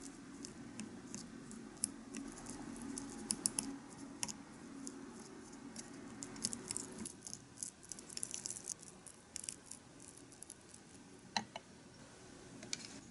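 A tiny metal spoon stirring minced meat in a small glass bowl: light, irregular clicks and scrapes of spoon against glass, coming in quick clusters.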